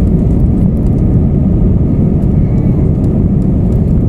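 Airbus A319 cabin noise while the plane rolls along the runway: a steady, loud, deep rumble of the jet engines and wheels heard through the fuselage.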